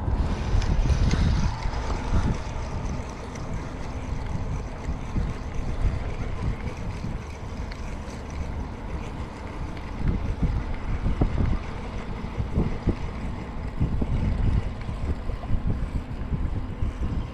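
Wind buffeting the microphone: a gusty low rumble that rises and falls, with some short bumps.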